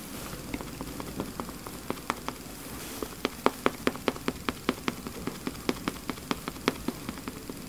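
Makeup sponge dabbing liquid foundation onto the face: a series of soft, sharp taps, sparse at first, then quicker and louder, about five a second, from about three seconds in.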